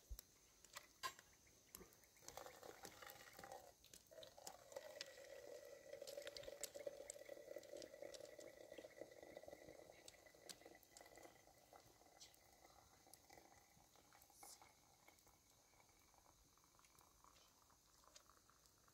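Near silence, with a faint, steady liquid sound from about two seconds in that fades out after about twelve seconds, and a few faint clicks.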